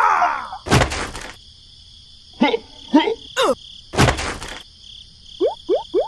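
Cartoon-style sound effects: squeaky pitched calls and, near the end, a quick run of short rising chirps, with two brief noisy swishes, over a steady high background of chirping insects.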